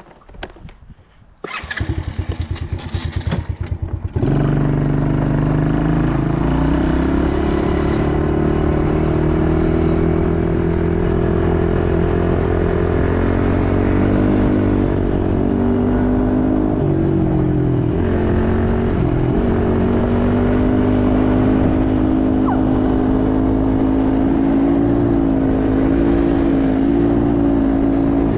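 ATV engine: a rapid chugging for about two and a half seconds, then the engine catches about four seconds in and runs loud and steady, its pitch shifting only slightly.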